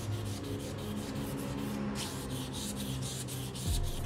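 Hand sanding: sandpaper rubbed in quick, repeated back-and-forth strokes over the body filler on a Honda C70 body panel, smoothing it before paint.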